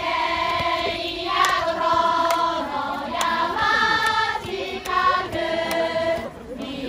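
A group of women singing together in unison with long held notes, likely a team or school song.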